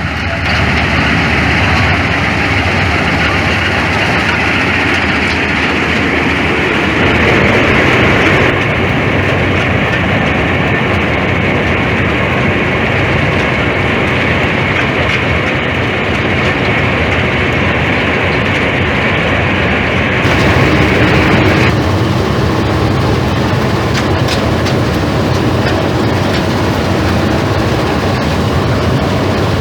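Combine harvester running steadily while harvesting rice: a loud, continuous machine noise whose tone shifts slightly a couple of times.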